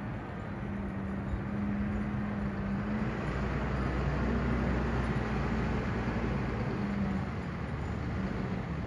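Rear-loader garbage truck's diesel engine running as the truck pulls away. It grows louder with a deep hum about three seconds in, then eases off again about seven seconds in.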